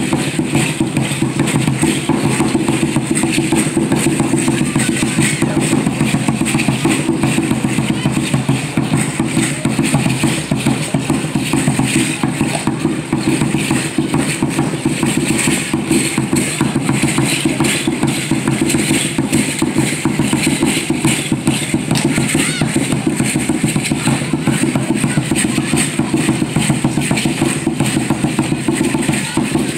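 Aztec dance drumming: a tall upright huehuetl drum beaten in a steady, unbroken rhythm, with a continuous high rattling over it, typical of the dancers' seed-pod ankle rattles.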